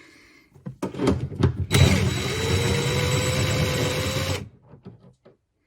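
A few light clicks, then a cordless power driver with a socket runs for about two and a half seconds, its motor pitch rising slightly, spinning a 10mm nut off a taillight stud. It stops abruptly, followed by a couple of faint clicks.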